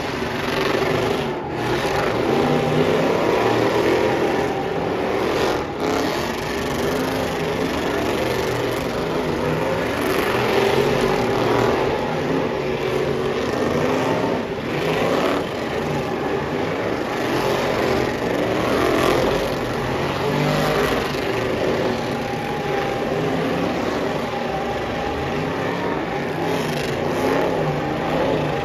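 Several pickup trucks doing burnouts and donuts together, engines revving hard and rear tyres spinning on the asphalt, a continuous loud din that swells and dips.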